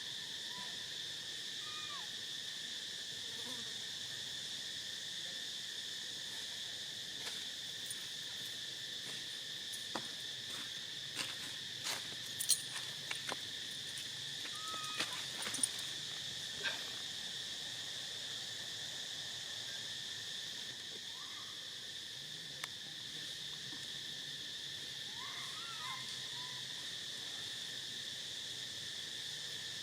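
Steady, high-pitched insect chorus of crickets or cicadas, with a few short rising-and-falling calls now and then and a scattering of sharp clicks and snaps in the middle.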